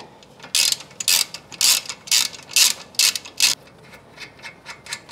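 Hand ratchet wrench with a 14 mm socket clicking through quick strokes, about two a second, as it backs out a brake caliper bolt; the clicking stops after about three and a half seconds.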